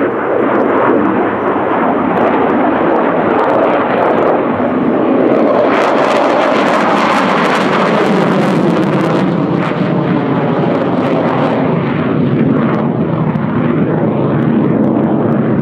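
Fighter jet's engines heard from the ground as it flies past overhead: a loud, steady rushing jet noise, with a stretch of crackling in the middle.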